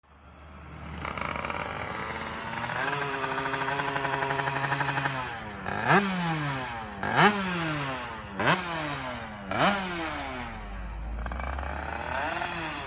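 Two-stroke motorcycle engine fitted with a YY Pang aftermarket exhaust, running steadily at first. It is then revved in four quick, sharp throttle blips about a second apart, each pitch jumping up and falling back to idle, with a smaller rev near the end.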